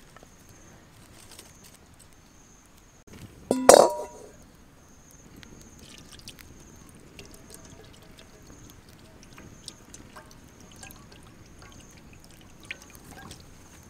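A metal wok set down onto hearth stones about four seconds in, a sharp clank that rings briefly. A wood fire crackles quietly under it, and near the end a thin stream of liquid is poured into the wok.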